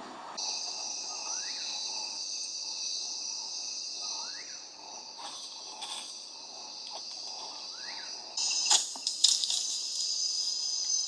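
Night-time rainforest insect chorus: a steady high-pitched buzzing and trilling, with a short rising call repeating about every three seconds. About eight seconds in the chorus gets louder and a few sharp clicks are heard.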